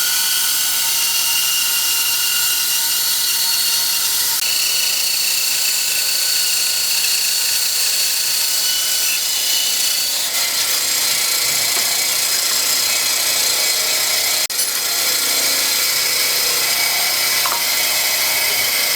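A small, high-pitched power tool running steadily while cutting wood. Its whine shifts pitch a couple of times as the load changes.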